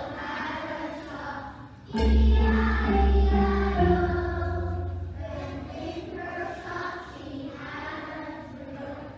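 A choir of young children singing, with a musical accompaniment whose strong bass comes in suddenly about two seconds in.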